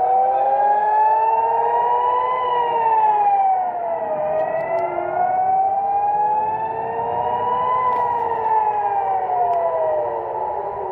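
Civil-defence air-raid sirens wailing, the pitch rising slowly for about three seconds and then falling back more quickly, twice over: the warning of incoming rockets.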